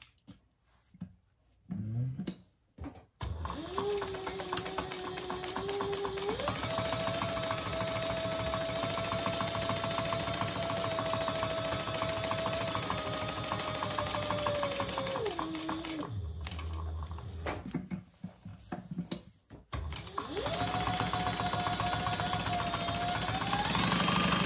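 Industrial sewing machine stitching a seam through four layers of fabric, batting and insulated lining, with a rapid needle rhythm under a motor whine. It runs from about 3 s in and speeds up with a rising whine. It holds a steady speed, then slows and stops about 16 s in, and starts again around 20 s, speeding up near the end.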